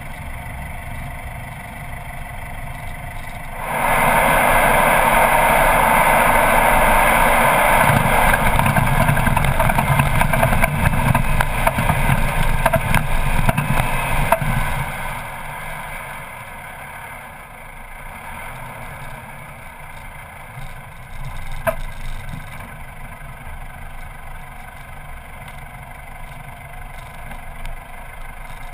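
Four-wheel drive driving over desert sand tracks and dunes, engine and wind noise heard at the bonnet. The sound jumps much louder about four seconds in, stays loud for roughly ten seconds as it crosses a dune, then eases back to a steadier, quieter run.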